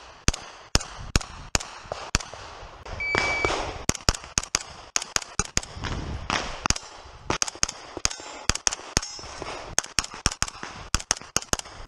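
An MP5 carbine firing rapid single shots, mostly in quick pairs and fast strings, with short pauses between strings as the shooter moves between targets. A short high beep sounds about three seconds in.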